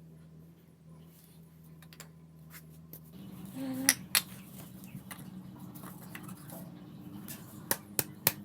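Small metal parts clinking and tapping together, several sharp clinks in the second half, over a faint steady hum that steps up in pitch about three seconds in.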